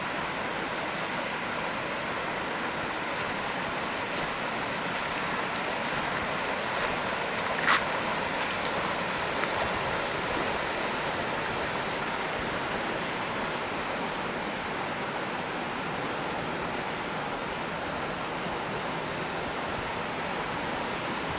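Steady rush of a shallow mountain river flowing over rocks and small rapids. A brief sharp click sounds about eight seconds in.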